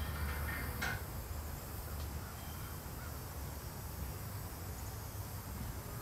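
Outdoor ambience: a steady low rumble, with one short harsh call, crow-like, just under a second in.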